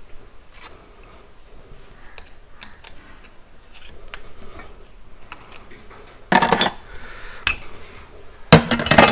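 Steel spanners clicking faintly on the top fitting of a motorcycle rear shock absorber as it is tightened. This is followed by two loud bursts of metallic clanking and jingling about six and eight and a half seconds in, as the spanners are handled and taken off.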